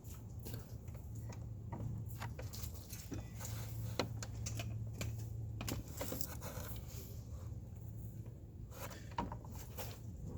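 Scattered light clicks and rattles of small hard objects being handled, over a steady low hum.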